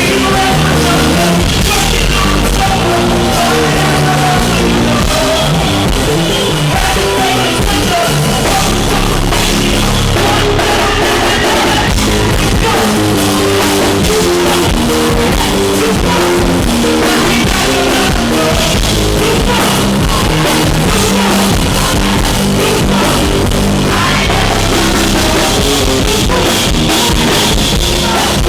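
Live band playing loud rock-leaning music with a drum kit, recorded through a microphone damaged by the venue's sound system, so the audio is rough.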